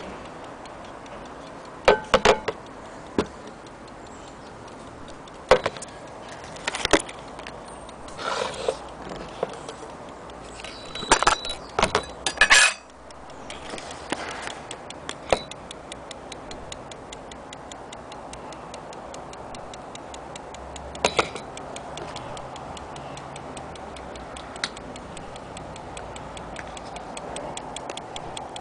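Platform escapement of a c1900 French brass drum clock ticking rapidly and steadily, a sign that the movement is running. In the first half, and once more later, louder knocks and clunks come from the clock being handled and turned over.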